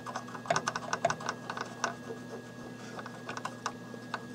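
Cotton swab with alcohol scrubbing the read/write head of a Commodore 1541 disk drive: a run of small irregular clicks and scratches, over a faint steady hum.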